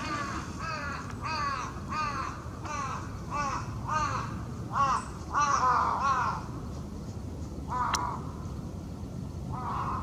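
Black woodpecker calling: a series of about a dozen ringing, arched notes, about two a second, then a pause and one more note near the end. A sharp click comes with that last note.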